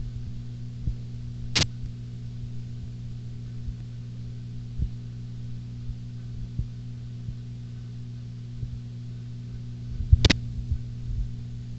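Steady low electrical hum, with a sharp click about a second and a half in and another click with a few soft knocks near the end.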